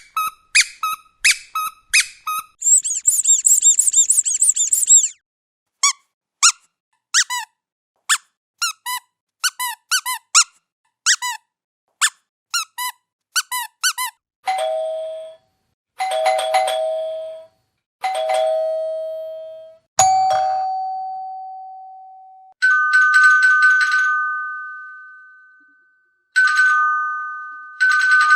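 Squeaky toy squeaked in quick runs of short, pitch-bending chirps, with a fast trill early on. About halfway through it gives way to a doorbell chiming ding-dong several times, each chime ringing out. After that comes a rapidly repeating electronic two-tone ring.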